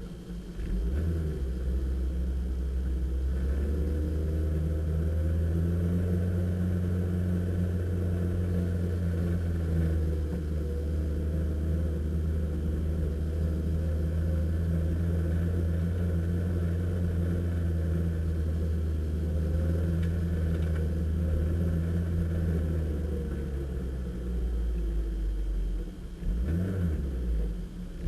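Mid-mounted 1.8-litre four-cylinder engine of a Toyota MR2 Spyder heard from inside the cabin, running at a steady low pitch for most of the stretch. Near the end its pitch and loudness dip and change a couple of times.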